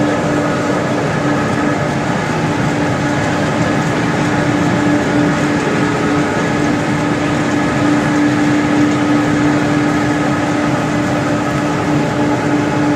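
A row of XGJ biomass pellet mills and their discharge conveyor running together while producing pellets: a loud, steady industrial drone with a constant hum, unchanging throughout.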